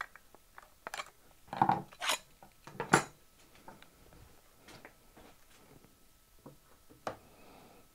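Clicks, clatter and knocks of a cordless jigsaw and hand tools being handled and set up, with the saw's motor not running. The loudest knocks fall around two and three seconds in, with another shortly before the end.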